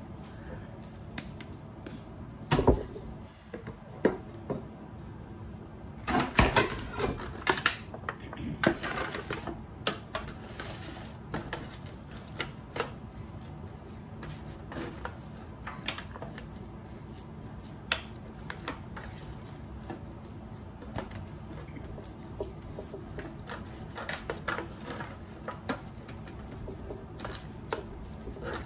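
Hands pressing and patting raw ground beef into a loaf in a disposable aluminum foil pan: scattered small clicks and crinkles from the thin foil. There is a sharper knock about two and a half seconds in, and a busier stretch of handling between about six and nine seconds in.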